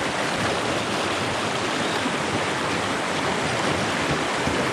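River water rushing over rocks through white-water rapids close by: a steady, even rush with no breaks.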